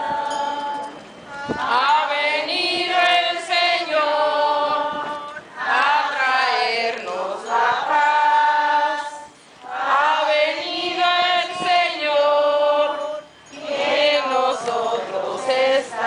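A group of worshippers sings a hymn together in long, held phrases, with brief pauses for breath every few seconds; women's voices are prominent.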